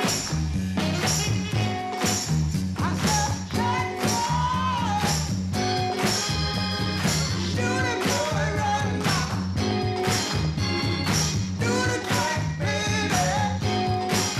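Up-tempo swing dance-band music with a strong steady beat.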